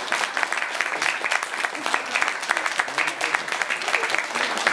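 Audience applauding steadily, many hands clapping at the end of a talk.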